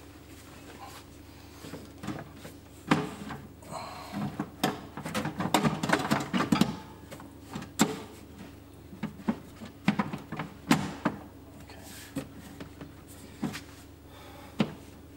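Scattered knocks, clicks and rustling from hands handling aquarium hose and fittings, busiest from about three to seven seconds in, over a steady low hum.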